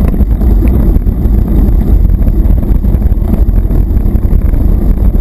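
Wind buffeting the microphone of a camera mounted on a mountain bike riding along a dirt track: a loud, steady low rumble mixed with tyre noise and small rattles from the bike.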